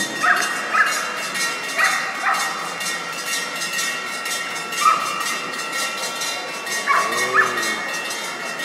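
A dog barking in short, high yips, about seven spread over the few seconds, over the steady noise of a large indoor arena crowd.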